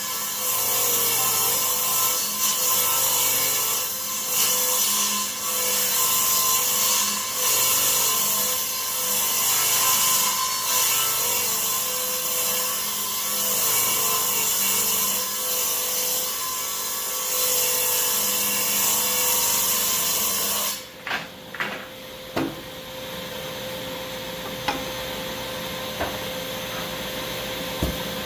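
Delta table saw ripping the edge of a maple board, a loud steady cutting noise for about twenty seconds. Near the end the cut finishes suddenly and the saw runs on more quietly with a steady whir, while a few knocks of wood are heard.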